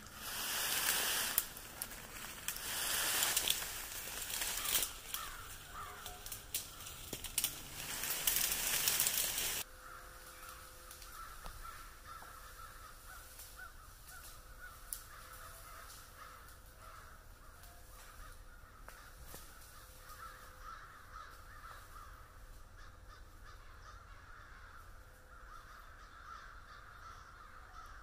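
A bundle of evergreen branches dragged across the forest floor, scraping and rustling in three long pulls. About ten seconds in this stops abruptly, leaving a steady high-pitched background chorus.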